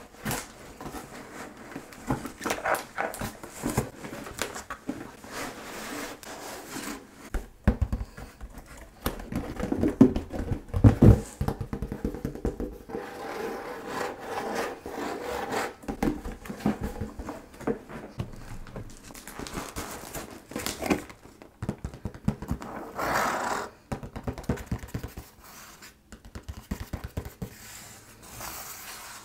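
Close-miked hands handling and opening a package and its contents: irregular rubbing, scraping and tapping, with a few louder knocks about ten seconds in.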